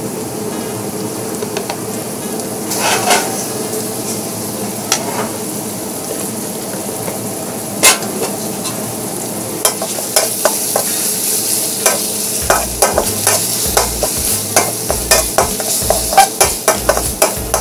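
Chili paste (cili boh) frying in hot oil with crisped shallots, garlic and lemongrass, with a steady sizzle. A utensil scrapes and knocks against the pan, a few times at first and then in quick, frequent strokes from about ten seconds in as the paste is stirred.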